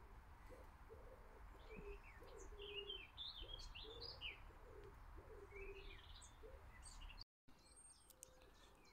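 Faint birdsong: small birds chirping and twittering, over a string of short, low repeated calls. The sound drops out for a moment near the end and is quieter after.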